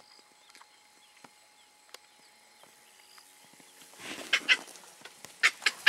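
Chacma baboons screaming in a squabble. After a quiet start with faint chirps, loud shrill calls break out: two about four seconds in and three more in quick succession near the end.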